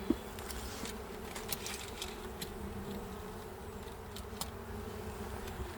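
Honey bees buzzing around an open hive, a steady hum, with a sharp click just after the start and a few faint ticks.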